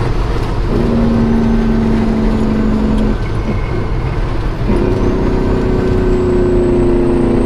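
Semi truck's diesel engine drone and road noise heard inside the cab while cruising on the highway. A steady engine hum drops away a little past halfway and comes back about a second and a half later at a higher pitch.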